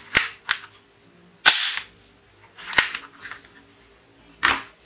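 Plastic toy sniper pistol going off: five sharp snaps, the loudest about one and a half seconds in.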